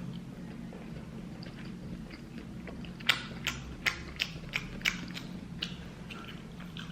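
Crab-leg shells being cracked and snapped open: a run of about eight sharp clicking cracks, roughly three a second, starting about three seconds in, over a steady low hum.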